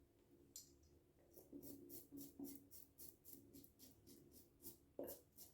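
Mühle R89 safety razor with a Feather blade on its third use scraping through stubble under wet lather: faint, quick short strokes at about four or five a second after a brief pause, with a soft knock near the end.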